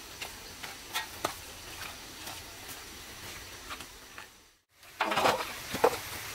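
Scattered light taps over a low outdoor background, then, after a brief dropout, a metal cooking pot being tipped while its contents are scraped and knocked out into a metal basin.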